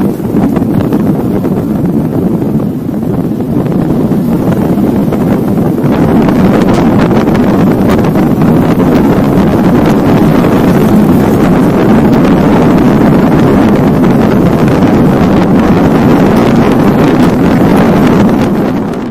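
Wind rushing over the microphone of a camera on a moving road vehicle, with a low engine-and-road rumble underneath. It is loud throughout and grows louder about five or six seconds in.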